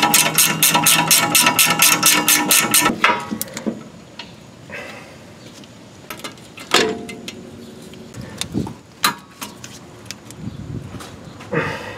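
Ratchet wrench clicking rapidly, about five clicks a second, as it tightens the upper ball joint's castellated nut; it stops about three seconds in. After that come a few scattered metal clinks and knocks of hand tools.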